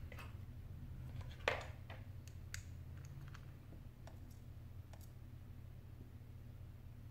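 A few scattered light clicks and taps of a small screwdriver and tiny screws against a metal parts tray, the sharpest click about a second and a half in, over a faint steady low hum.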